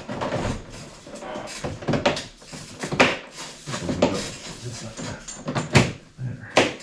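Car grille parts being handled and pressed together: a series of separate clicks and knocks as the pieces are fitted into their clips.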